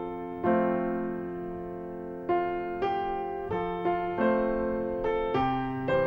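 Slow piano music: single notes and chords struck every half second to second or so, each ringing out and fading before the next.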